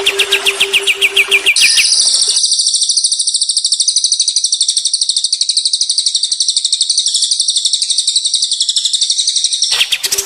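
Songbird song: a quick run of repeated high chirps, then, about one and a half seconds in, a long, high, very fast trill that runs steadily for about eight seconds before the chirping returns near the end.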